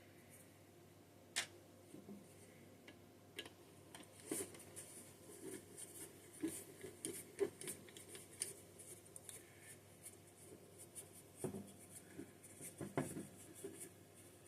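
Faint handling noises from tools and small metal parts of a Holley 4237B carburetor being taken apart: a sharp click about a second in, then scattered clicks, taps and short scraping sounds through the rest.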